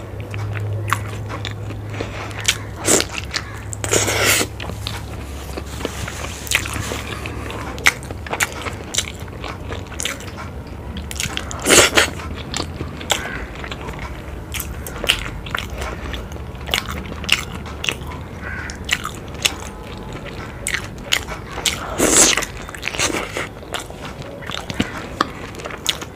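Close-miked chewing and wet mouth sounds of someone eating boiled eggs dipped in spicy egg curry by hand. Many brief clicks, with a few louder bursts about 4, 12 and 22 seconds in.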